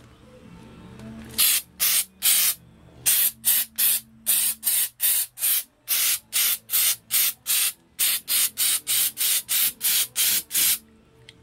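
Aerosol can of undercoating sprayed in quick short bursts, about two or three a second. The spraying starts a little over a second in and stops near the end.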